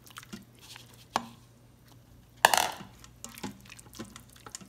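A spoon stirring thick, cheesy dip in a stainless steel Instant Pot inner pot: scattered light clicks and scrapes of the spoon against the pot, with one louder knock about halfway through.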